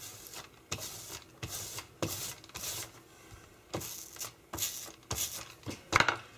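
Glue being spread over fine bookbinding cloth by hand: a series of short rubbing strokes, about one or two a second, with a sharper, louder stroke near the end.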